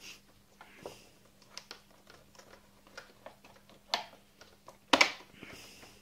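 Plastic clicks and knocks as a robot vacuum's roller brush is fitted back into its housing by hand, with the loudest clicks about five seconds in.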